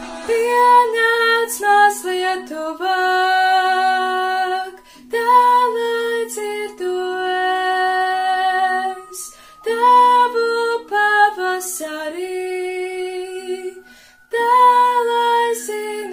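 A young girl singing a song in Latvian solo, in phrases of long held notes with short breaths between them.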